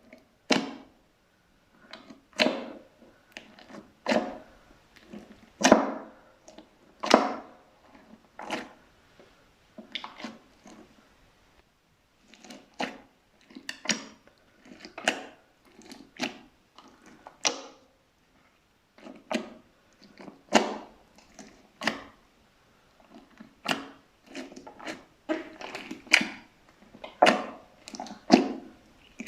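Slime being pressed and squished by hand, a short squish with each press, repeating about every second to second and a half.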